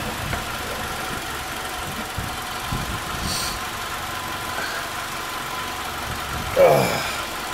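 A steady engine-like drone with a faint hum running through it, a light click about three seconds in, and a brief spoken word near the end.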